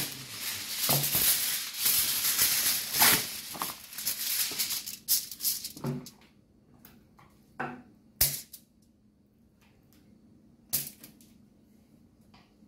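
Sheet of aluminium foil crinkling and rustling as it is torn from the box and spread out, for about the first six seconds; after that only a few short, separate taps.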